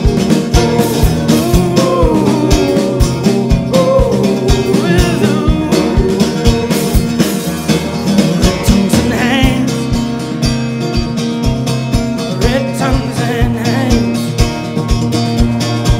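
Live folk-rock band playing an instrumental passage: strummed acoustic guitar and cello over a drum kit keeping a steady beat.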